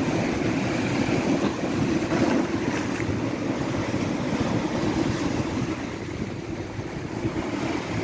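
Sea waves surging and breaking over shoreline rocks: a steady rush of surf that swells a little about two seconds in and eases toward the end.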